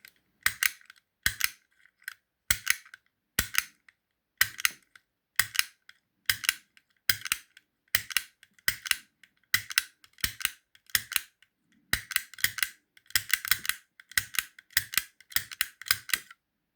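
Manual pick gun (snap gun) snapping against the pins of a padlock: a sharp metallic snap about once every three-quarters of a second, some two dozen times. The lock does not open; the picker hears only two or three pins setting.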